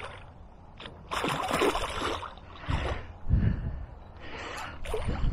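A hooked pike splashing and thrashing at the surface close to the bank, in bursts, the biggest about a second in. Gusts of wind buffet the head-mounted camera's microphone.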